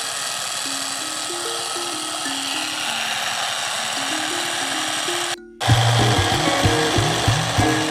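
Background music: a simple melody of held notes over a steady hiss. It breaks off briefly about five seconds in and comes back louder, with a pulsing bass beat.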